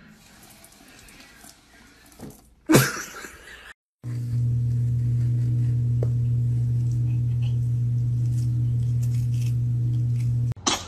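A loud, steady low hum with a few fainter steady tones above it, lasting about six seconds and cutting off abruptly. A short, sudden loud noise comes about three seconds before the hum starts.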